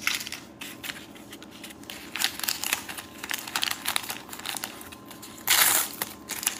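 Small plastic packet crinkling as it is handled and pulled at, with a louder rip a little after five and a half seconds as the packet tears open.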